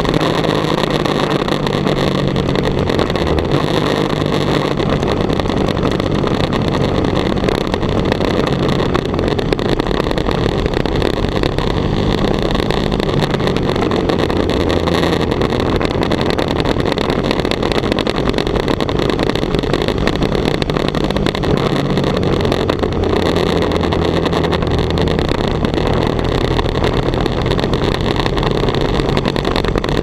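Sport motorcycle engine running at road speed, its pitch stepping up and down several times as throttle and gears change, under a loud steady rush of wind on the onboard camera's microphone.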